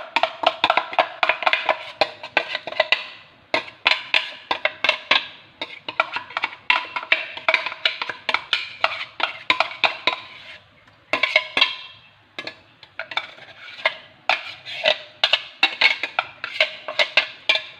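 Fast, uneven knocking, several sharp strikes a second, with short breaks about three, six and twelve seconds in.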